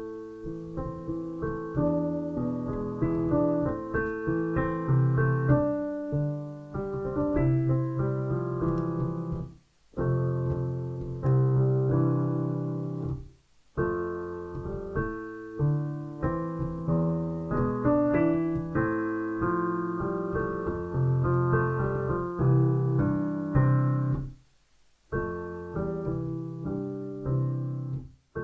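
Piano music: a melody over chords, stopping abruptly three times for a brief silence before picking up again.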